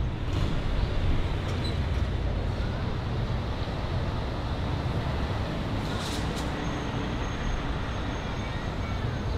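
Steady city street traffic noise, an even low rumble of vehicles with a brief sharp click about six seconds in.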